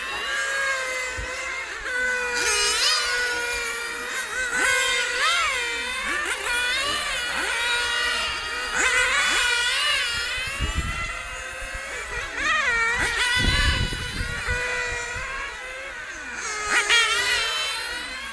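Several small nitro glow engines of on-road RC race cars screaming at high pitch, overlapping, each rising as a car accelerates and dropping as it brakes for the corners. Two brief low rumbles sound about two-thirds of the way through.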